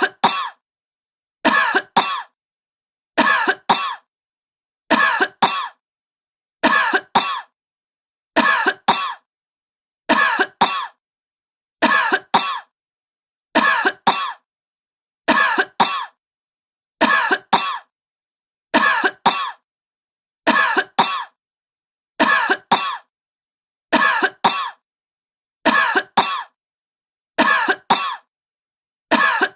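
A sick woman coughing: the same two quick coughs repeat evenly about every 1.7 seconds, with dead silence between each pair.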